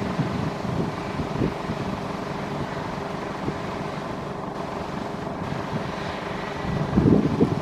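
John Deere 8R 410 tractor and New Holland BigBaler 1290 HD big square baler running while baling straw: a steady engine and machinery noise with irregular low knocks, loudest about seven seconds in.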